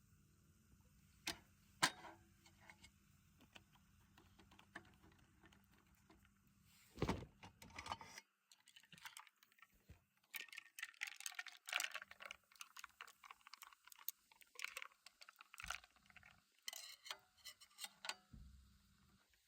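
Faint, irregular light clicking and clinking of small hard objects being handled, with a couple of sharp clicks about a second or two in and busier clattering through the second half.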